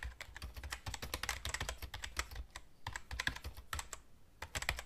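Typing on a computer keyboard: a quick, irregular run of key clicks, easing off briefly near the end before resuming.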